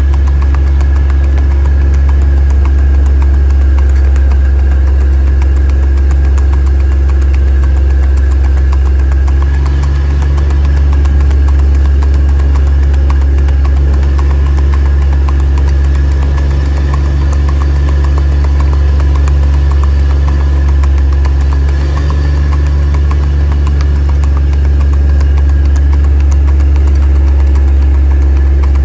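A vehicle engine running steadily, loud and close, with a deep unchanging hum.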